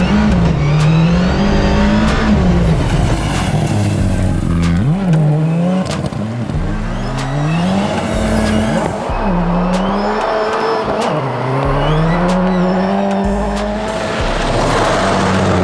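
Ford Escort Cosworth rally car's engine run hard on a timed gravel run: it climbs in pitch, drops as it lifts off or shifts, and pulls again, about six times, with scattered sharp cracks.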